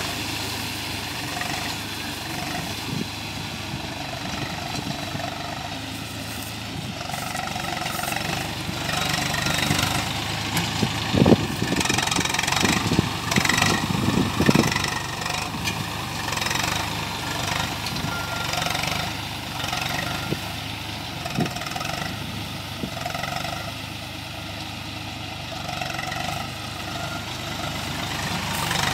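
Diesel tractor engine running steadily while towing a DHARANEE round baler through loose straw, with the baler's pickup and drive clattering. A cluster of loud knocks comes about eleven to fifteen seconds in.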